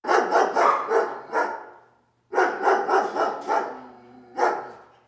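A dog barking: two runs of quick barks, then a single bark near the end.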